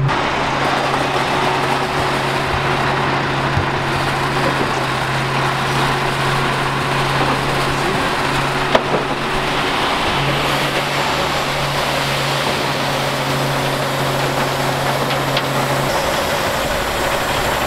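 Dump truck running with its hydraulic hoist raising the body, dirt sliding out through the open tailgate. A steady low hum runs under a dense rushing noise, the hum dropping out briefly near the middle, with one sharp click about halfway.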